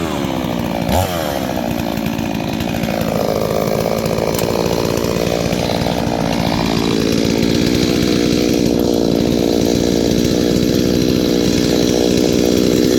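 Brand-new Holzfforma G388 72cc two-stroke chainsaw, being run in, dropping from high revs to idle at the start, then idling steadily. A knock about a second in.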